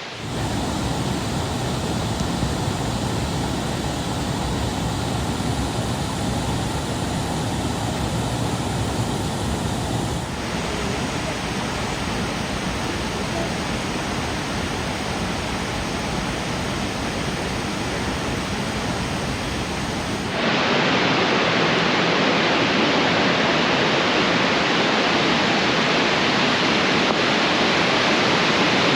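Steady rush of falling water from Burney Falls, a 129-foot waterfall. The sound changes abruptly twice, about ten seconds in and again about twenty seconds in, becoming louder and brighter the second time.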